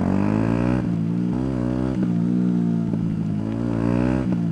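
Yamaha YZF-R125's single-cylinder four-stroke engine accelerating, its pitch climbing and dropping back several times as it shifts up through the gears.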